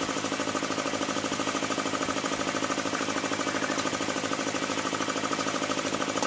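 Air compressor running steadily with a fast, even pulsing beat, supplying air to an air-lift bore pump.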